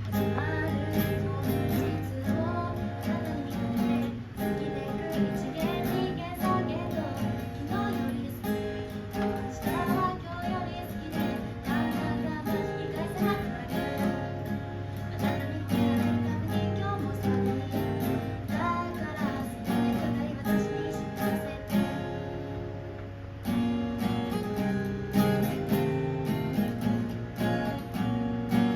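Acoustic guitar playing a song, strummed chords mixed with picked notes, with a brief softer moment near the end.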